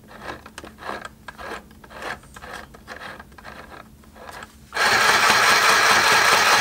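Light handling clicks, then about five seconds in a cheap $8 mini electric sewing machine starts up and runs steadily and loudly, stitching through two layers of heavy 1000D Cordura nylon with thick V69 thread.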